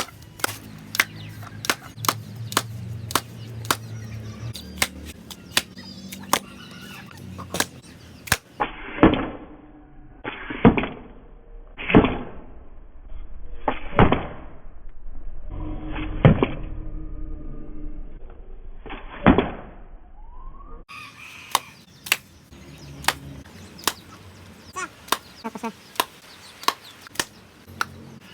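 Many sharp, irregular clicks and taps, then six heavier strokes spaced about a second and a half to two seconds apart in the middle, then irregular clicks again.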